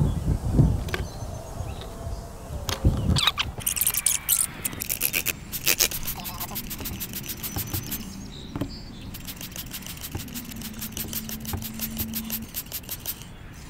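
Trigger spray bottle of Simple Green cleaner pumped rapidly, about four short sprays a second, misting an RC crawler tire. A few knocks from handling the wheel come before the spraying starts.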